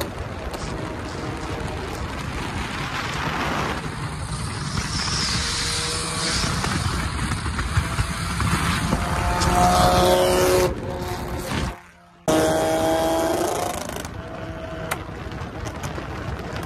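2007 Volkswagen Jetta 2.5's inline five-cylinder running through a catless, straight-piped exhaust while driving, with road and wind noise. The exhaust note rises in pitch about ten seconds in, drops out suddenly for about half a second near twelve seconds, then falls away.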